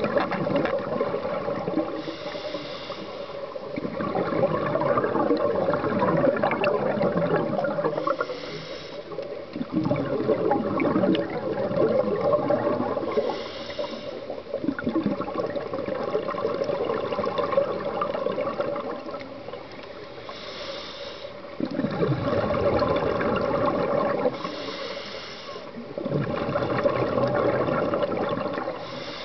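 Scuba diver breathing through a regulator underwater: a short hiss on each inhale, then a longer stretch of bubbling as the exhaled air vents, repeating about every five seconds.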